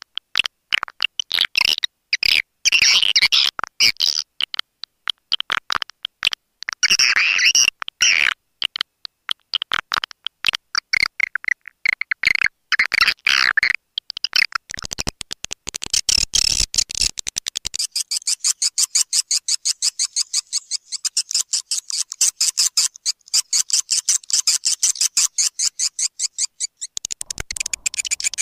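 Recorded edible-nest swiftlet (walet) calls of the kind played as a lure to draw swiftlets into a nesting house. Rapid high chirping and twittering trills give way about halfway through to a fast, steady run of high, dry clicks.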